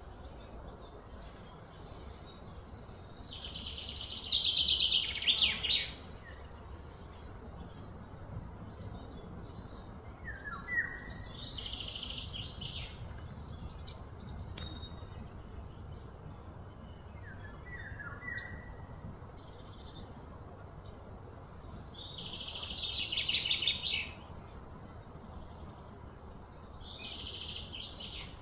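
Outdoor wildlife calls: short falling chirps, and a loud, high buzzy trill that swells and fades, about four seconds in and again about twenty-two seconds in.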